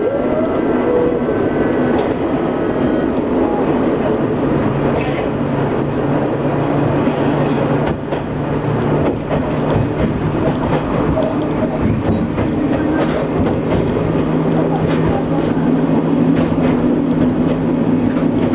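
Diesel railcar running along the line: a steady engine drone over the rumble and clatter of wheels on rail, the engine note shifting a few times.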